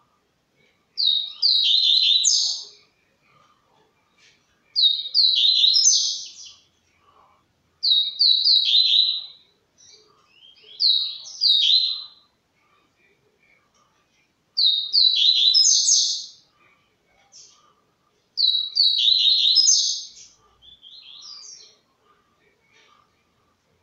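Caged songbird, a Brazilian 'canela branca', singing short high twittering phrases of quick falling notes. There are about seven phrases, a few seconds apart, with a few softer notes near the end.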